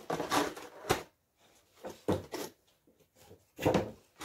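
A vinyl Funko Pop figure being handled and pushed back into its cardboard box: a string of short scrapes and knocks, with a sharp click about a second in.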